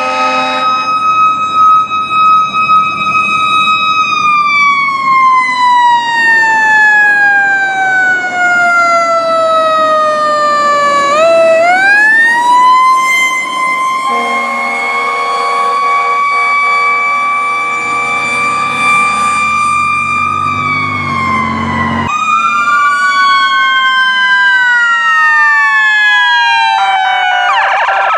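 Fire rescue truck sirens. The first siren holds a high wail, falls slowly in pitch over several seconds, then climbs back and holds. About two-thirds of the way through, another truck's siren cuts in with two tones sweeping up and down, turning to a fast yelp near the end.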